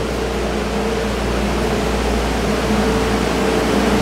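Refrigerated (reefer) shipping containers running: a steady mechanical hum from their compressors and fans, with a few held tones over a low rumble, growing slightly louder.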